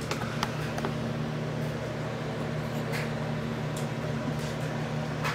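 Steady low mechanical hum of room background noise, with a few faint light clicks over it.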